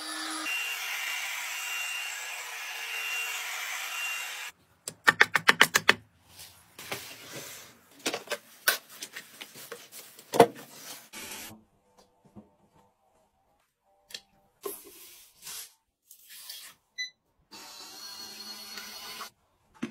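Handheld bed mite vacuum cleaner running steadily with a thin high whine, cutting off about four and a half seconds in. Then a quick run of about ten sharp clicks, scattered knocks and rustles, and a short stretch of softer steady running sound near the end.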